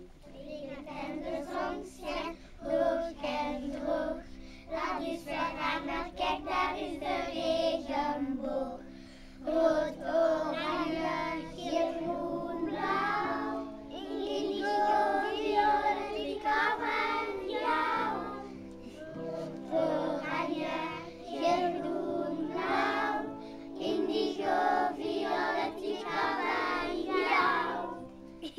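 A group of young children singing a song together in unison, phrase after phrase.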